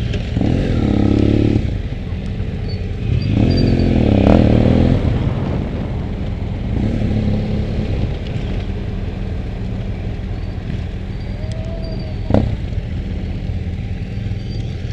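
Motorcycle engine running steadily off-road, blipped up and down twice in the first five seconds, with a single sharp knock about twelve seconds in. The source is most likely the camera rider's own BMW F800 GS parallel twin.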